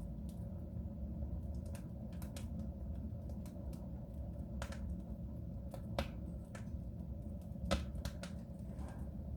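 Wood fire crackling in a soapstone stove: irregular sharp pops and snaps, the two loudest about six and nearly eight seconds in, over a steady low rumble of the burning fire.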